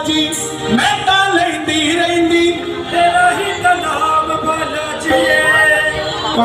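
Live Hindu devotional bhajan music, amplified through a microphone: a male voice sings a drawn-out melody over instrumental accompaniment.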